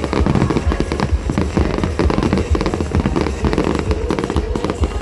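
Aerial fireworks display: many shells bursting in quick succession, a continuous barrage of bangs and crackles with a deep rumble underneath.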